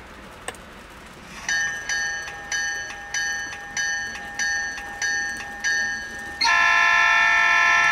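HO-scale Broadway Limited SD40's DCC sound decoder playing through its small onboard speaker: a locomotive bell ringing in steady strokes, a little under two a second, then about six and a half seconds in a loud multi-chime air horn sounding steadily.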